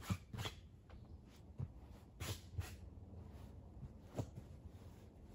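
A few sharp slaps and taps from a climber's hands and shoes readying on the sandstone start holds: two quick pairs, then a single one about four seconds in.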